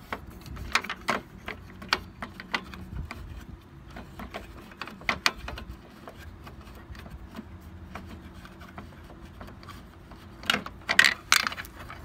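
Small metallic clicks and plastic rattles of screws being worked loose from the outside door-handle housing on a Chevy Silverado rear door, with a louder burst of clattering near the end.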